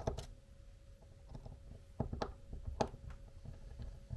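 Small sharp clicks and taps of an RC4WD mini beadlock wheel and its tiny screws being handled: one at the start and a few close together about two seconds in.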